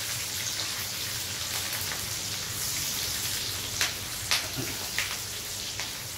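Chopped onions and green chillies sizzling steadily as they are stir-fried in a wok, with a few short sharp crackles in the second half.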